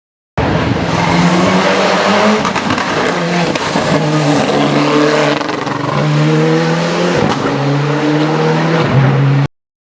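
Rally car engine revving hard, its pitch climbing and then dropping again and again as it accelerates and shifts through the gears, over tyre and road noise.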